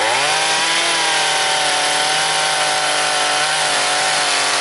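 Chainsaw throttled up within the first half second and held at a steady high speed while making a deep horizontal cut into a wooden log.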